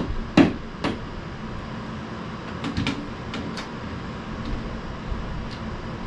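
Three sharp knocks about half a second apart in the first second, then a few faint taps and clicks, as a picture frame is hung on a wall.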